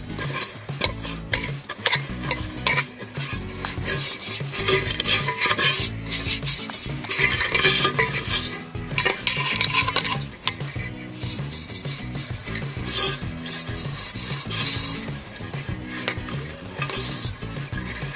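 A hand rubbing ghee around the inside of an aluminium pot, greasing it for cake batter: a rapid scraping swish of skin on metal in quick strokes, busiest in the first half.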